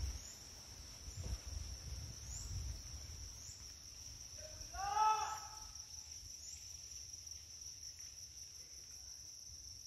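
Forest insects, cricket-like, keeping up a steady high-pitched drone, with faint chirps repeating about once a second. About halfway through comes one short animal call with several pitches at once, the loudest sound here. Low wind or handling rumble on the microphone fades after the first few seconds.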